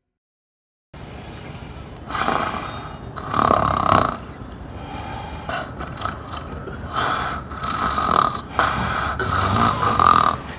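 A person snoring loudly, a string of uneven snores that starts about a second in.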